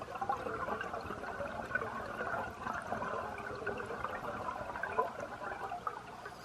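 Underwater bubbling and gurgling from a scuba diver's exhaled breath streaming out of the regulator, fading near the end.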